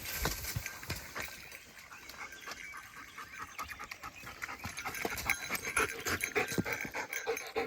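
German shepherd panting, with many short clicks and rustles throughout.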